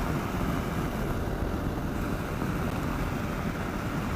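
Steady wind rush over a helmet-mounted microphone at road speed, with a Kawasaki KLR 650's single-cylinder engine running underneath.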